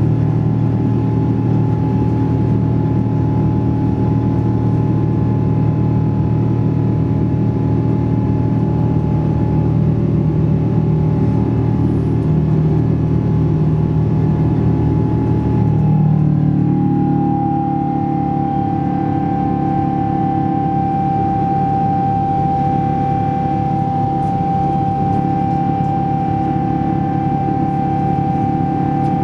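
Boeing 777-200ER's jet engines heard from inside the cabin during the climb after takeoff: a steady drone with a held tone. About sixteen seconds in the tone drops a little in pitch and the noise eases slightly, typical of the thrust being reduced for the climb.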